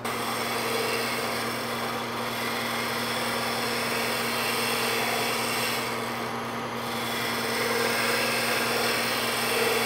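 Wood lathe running with a scraper held against a spinning walnut sphere: a steady scraping hiss over the lathe's motor hum. The scraper is shaving down high points to bring the sphere round, and the scraping lightens briefly around the middle.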